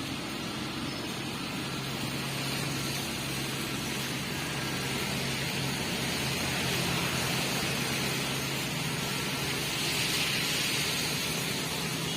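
A diesel engine running steadily, a continuous low hum under a hiss that swells slightly near the end.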